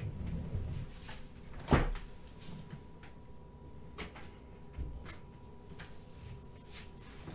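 Off-camera handling noises on a desk: a sharp knock a little under two seconds in, the loudest sound, then a couple of lighter taps and clicks, with some soft rustling.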